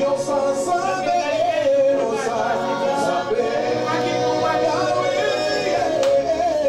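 A woman singing a worship song, unaccompanied, with long held notes.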